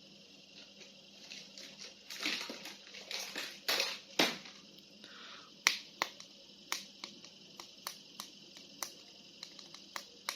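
Plastic toy figures and packaging being handled. Crinkling rustles come in the first half, then a run of sharp, irregular plastic clicks.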